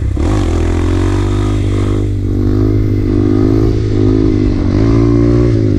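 Low-powered dirt bike's engine running while ridden, the revs swelling about two seconds in and again near the end.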